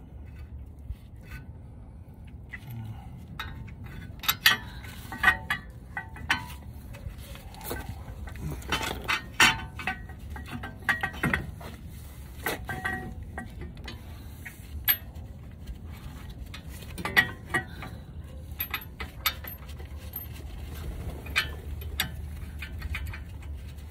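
Irregular metallic clinks and taps as the steel caliper bracket bolt and bracket of a 2015 Ford Explorer's front brake are handled and fitted by hand, over a steady low hum.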